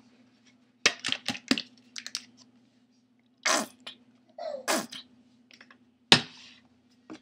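Plastic Heinz ketchup squeeze bottle being shaken, with a few quick knocks about a second in. Then three spluttering squirts as ketchup and air are squeezed out onto a paper plate.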